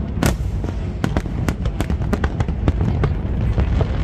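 Fireworks display: a rapid run of sharp bangs and crackles over a constant low rumble of bursting shells.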